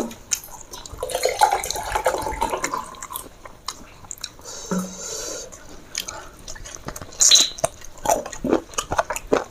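Eating sounds: wet squelching of rice mixed with watery sour dal, with chewing and small irregular clicks.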